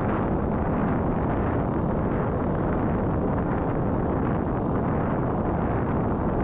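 Wind noise buffeting a chest-mounted GoPro's microphone as a road bike rides along: a steady, low rush with no let-up.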